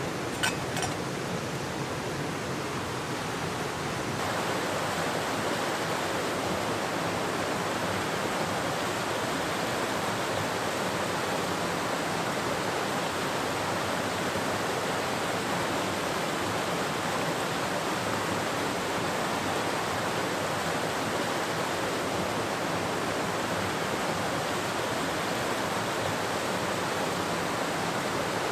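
Moorland stream rushing over rocks, a steady rush that gets a little louder about four seconds in. Near the start, a metal lid clinks a few times with a light ring as it is set on a metal camping pot.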